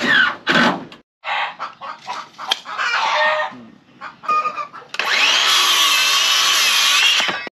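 Chickens clucking in short, separate calls. Then, about five seconds in, a circular saw runs through a wooden board for about two and a half seconds, its whine wavering under the load, and it stops abruptly.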